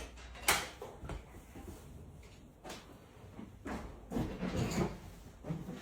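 Several light knocks and bumps at irregular intervals over a quiet room background.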